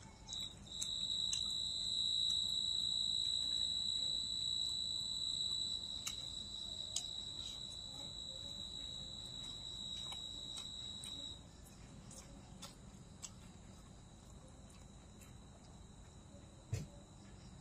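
Insect trilling at one steady high pitch for about ten seconds, then cutting off suddenly, leaving a fainter trill at the same pitch, with faint scattered clicks.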